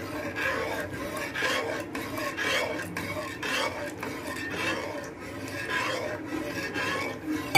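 Metal spoon stirring and scraping against the bottom and sides of a steel pot of water, in repeated rasping strokes, while red-coloured dissolved agar agar is poured in.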